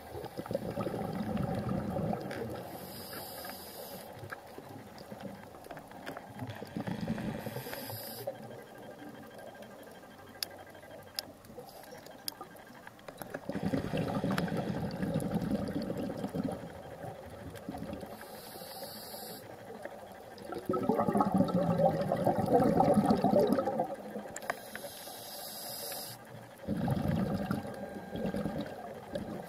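A scuba diver breathing through a regulator underwater. Short hisses on each inhalation alternate with longer bursts of exhaled bubbles, in slow, uneven breaths. The loudest bubble burst comes a little past the middle.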